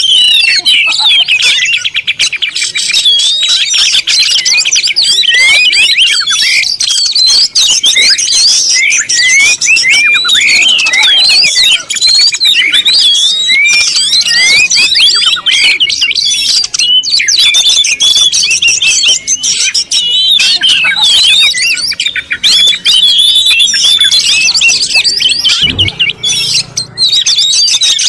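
Many small birds chirping and calling at once in a dense, continuous chatter of short, overlapping chirps, with a brief low thud near the end.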